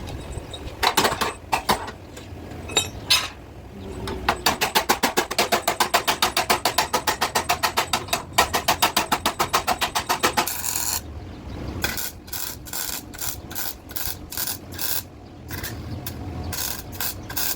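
A hand tool scraping or rasping on metal in fast, even back-and-forth strokes, about six a second, for several seconds, then slower, spaced strokes.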